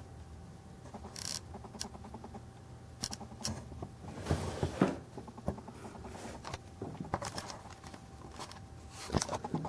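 Light handling noises of a diecast model excavator being moved in the hand: scattered small clicks, taps and brief rustles, with a faint steady hum underneath.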